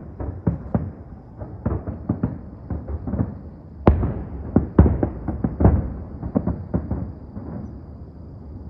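New Year's aerial fireworks bursting in quick, irregular succession, several booms a second, with an especially loud burst about four seconds in; the bursts thin out near the end.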